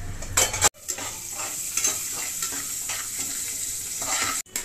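Whole spices sizzling in hot oil in an aluminium pressure cooker, stirred with a metal spoon that scrapes the pan bottom in short, regular strokes about three times a second.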